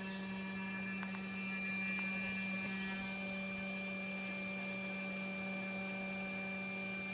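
Snapmaker A350T CNC router's spindle running at about 11,500 RPM while its end mill cuts plywood: a steady hum with a thin high whine over it.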